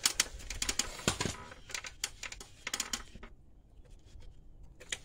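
A run of light, irregular clicks and clinks of metal brake parts and tools being handled. They stop for a short lull, then a few more clicks come near the end.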